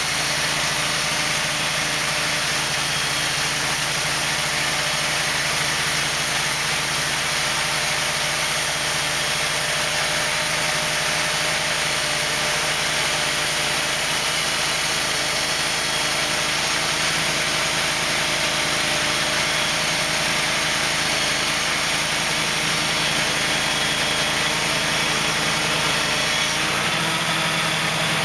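Wood-Mizer portable band sawmill running steadily, its engine driving the band saw blade while sawing a wide board. The low part of the sound changes a little near the end.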